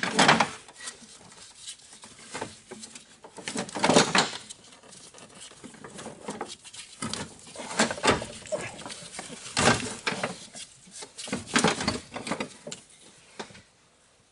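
Irregular clinks, knocks and scraping of metal tools and parts being handled during car repair work. They come in clusters a second or two apart and stop shortly before the end.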